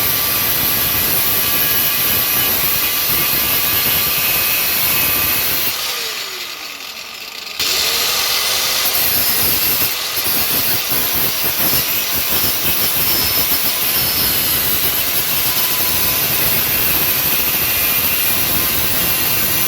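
Handheld power tool running loud and steady. It is switched off about six seconds in, its pitch falling as it winds down, then started again and spun back up a second and a half later. It begins to wind down again at the end.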